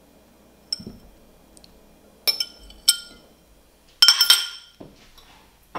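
A metal fork clinking against a glass container while roasted beets are scraped out of it. There are a few scattered clinks, then a quick run of louder ones about four seconds in.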